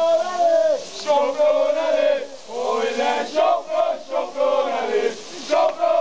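Crowd of football ultras chanting in unison, mostly men's voices, in loud shouted phrases with brief pauses between them.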